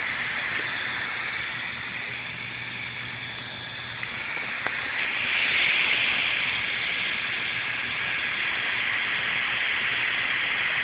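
Laptop cooling fan running hard: a steady hiss with a faint low hum under it, growing louder about five seconds in as the fan speeds up, like a jet plane kicking in. The laptop is running very hot.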